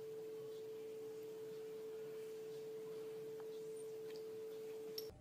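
A single faint pure tone held at one steady pitch, cutting off suddenly about five seconds in.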